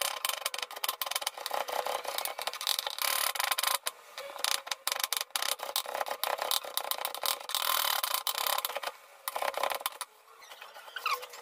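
Chef's knife rapidly chopping onion on a wooden cutting board, a fast run of sharp taps with a couple of short pauses, stopping about ten seconds in.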